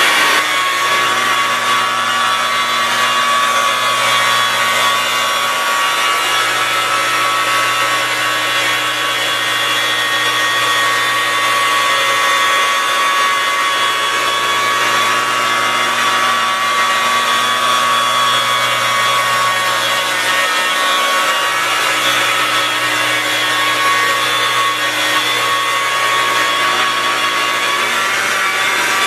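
Electric rotary polisher running steadily with a soft black foam pad, buffing swirl mark remover compound into black car paint: an even motor whine over the hiss of the pad rubbing the panel.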